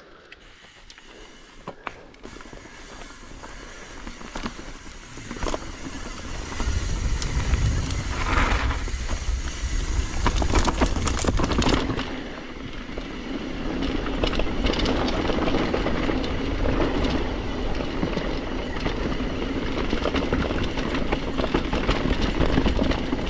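Mountain bike descending a downhill trail at speed: wind rushing over the microphone and tyres rolling on dirt, with rattles from the bike. It grows louder over the first several seconds as speed builds, eases briefly about halfway, then stays loud.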